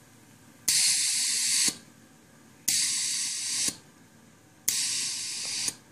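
Compressed air hissing through the homebuilt ballast system's valves in three bursts of about a second each, two seconds apart, each one starting and stopping abruptly.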